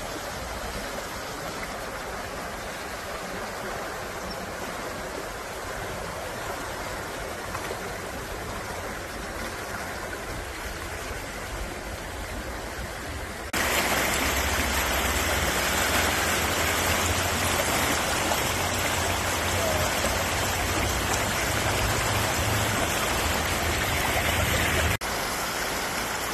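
Whitewater rapids on a shallow river rushing in a steady hiss of water. About halfway through it cuts to louder, closer rushing water with a low rumble underneath.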